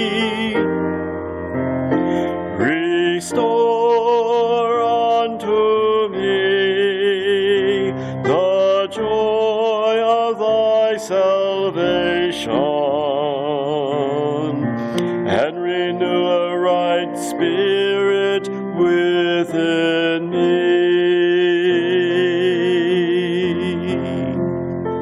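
A solo voice singing a slow worship song with vibrato, held notes changing every second or so, over a keyboard accompaniment.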